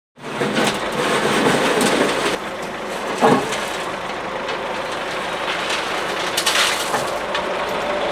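Tractor-mounted backhoe running while its steel bucket scrapes and crunches through broken asphalt and gravel, with a sharp knock about three seconds in and another clank near the end.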